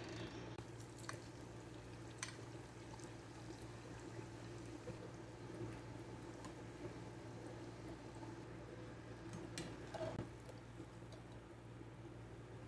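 Donuts frying in hot oil in an aluminium pot, a faint steady sizzle over a low hum. A metal slotted spoon and ladle click against the pot a few times.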